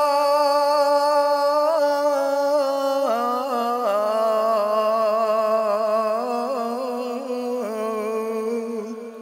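A man's voice chanting long, drawn-out wordless notes of a Balti marsiya (elegy), slightly wavering, stepping down in pitch about three and four seconds in and fading out near the end.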